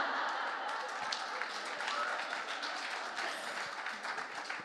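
Audience laughing and applauding, a dense wash of crowd noise with clapping that eases off slowly near the end.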